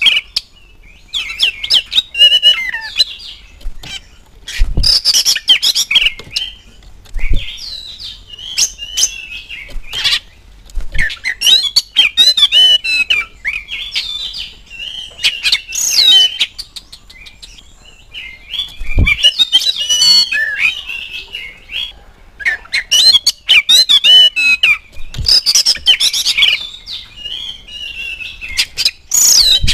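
Oriental magpie-robin singing loud, varied phrases of whistles, trills and chatter in bursts of a second or more, with short pauses between them. A few low thumps break in now and then.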